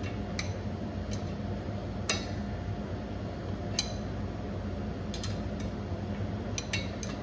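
Steel pry bar and tools clinking and tapping against the driveshaft and underbody metal in scattered, irregular strikes, the loudest about two seconds in, as the driveshaft is pried out. A steady low hum runs underneath.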